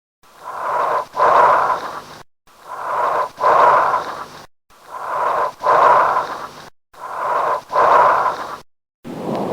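Bronchial breath sounds: four breaths, each a rushing inhalation, then a brief silent pause, then a louder exhalation about as long as the inhalation.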